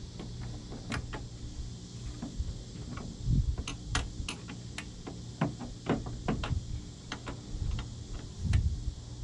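Irregular sharp clicks and taps of hand work on a truck's fan shroud as it is bolted together. Fasteners and tools knock against the shroud, with a couple of dull thumps, one about three seconds in and one near the end.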